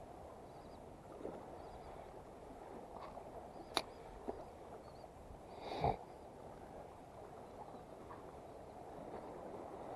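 Faint seaside ambience of wind and water washing, with a couple of sharp clicks a little before halfway and a brief louder knock just before the middle.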